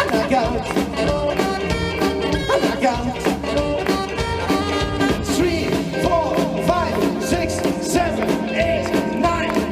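Live band playing a rock and roll instrumental passage with a steady beat and no sung words.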